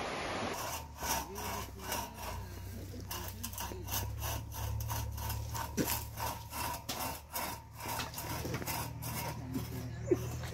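Wood being sawn by hand, a steady back-and-forth rasp of strokes, about three a second.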